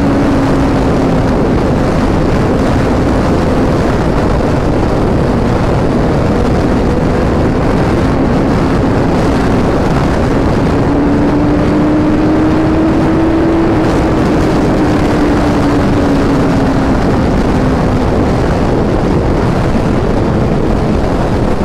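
Suzuki Hayabusa's inline-four engine running at a steady highway cruise through an aftermarket Racefit exhaust, its note sagging slightly and then climbing again over the span. A dense rush of wind and road noise lies over it throughout.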